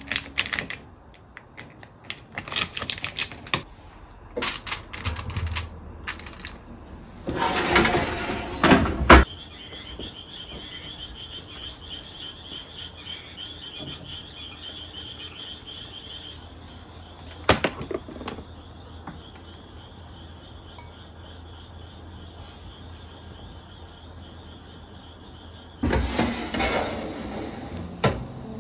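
Kitchen knife cutting a grilled eel fillet on a board: a run of sharp taps and clicks during the first nine seconds. A quieter stretch with a faint steady high tone follows, and a burst of noise comes near the end.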